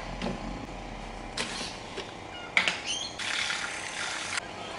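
Handheld milk frother whirring in a glass of coffee for about a second near the end, after a couple of short scraping noises.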